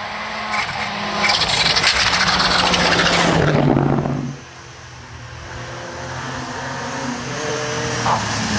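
Rally car engine running hard as the car comes past close by, with heavy tyre and road noise, its pitch dropping as it goes by and then cutting off suddenly about four seconds in. After that a second rally car's engine is heard revving, getting louder and rising in pitch towards the end.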